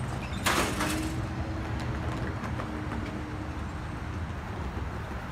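Road traffic crossing the railroad tracks: a steady low rumble of passing cars and trucks, with a short loud rush of noise about half a second in.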